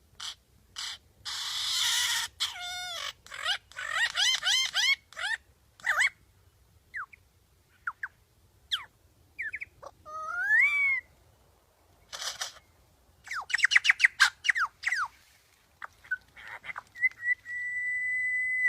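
A songbird singing a varied song: harsh rasping notes, fast runs of repeated notes and sliding whistles, ending on one long steady whistle.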